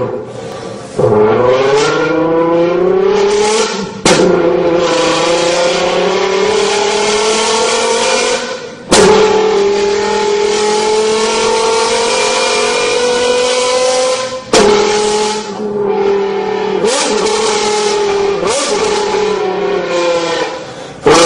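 A man's voice buzzed into a can, imitating a Lamborghini engine revving through the gears: a loud, pitched engine-like drone that climbs in pitch, cut by short breaks like gear changes four times.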